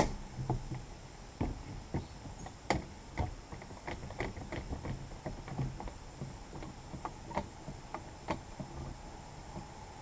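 Irregular light knocks and clicks, one to three a second, of tools and a white board panel being handled; no saw is running.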